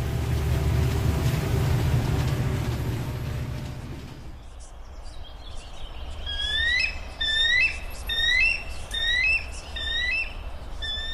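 Freight train rumbling past, fading away over the first four seconds. Then a bird calls over and over in short, rising notes.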